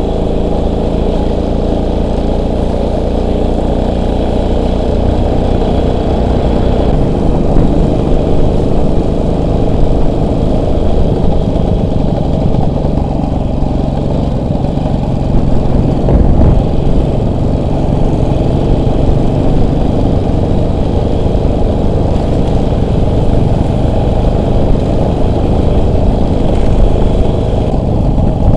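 Motorcycle engine running while being ridden off-road, its note shifting about seven seconds in as the revs change.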